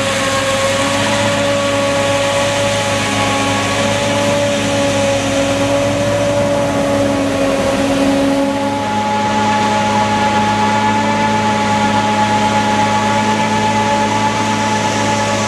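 Claas Jaguar 960 forage harvester running under load, chopping a standing green crop and blowing it into a silage trailer, with the tractor pulling the trailer alongside. A loud, steady machine hum with several held tones over a rushing noise; the tones shift in pitch about nine seconds in.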